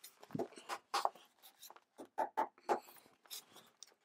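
Handling noise from a glued skirting board being set against the wall, with clamps being handled: a run of irregular knocks, clicks and short scrapes. The loudest knocks come about a second in and between two and three seconds in.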